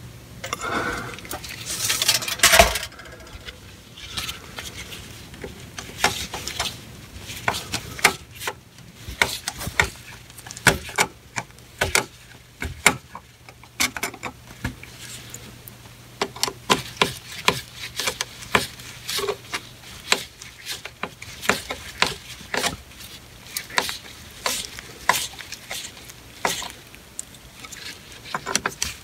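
A screwdriver tightening stainless steel worm-gear hose clamps around a cast iron drain pipe: a stream of small, irregular metallic clicks and scrapes. There is a louder clatter ending in a sharp click about two seconds in.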